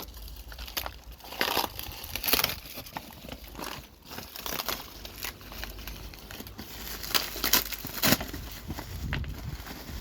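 Packaging crinkling and rustling in irregular bursts as the returned airbag parts are handled and unwrapped.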